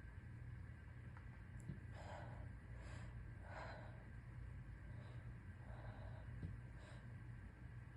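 A sick person's soft, breathy sniffs and gasping inhalations, about five of them spread over the middle of the stretch, as a sneeze builds and has not yet come.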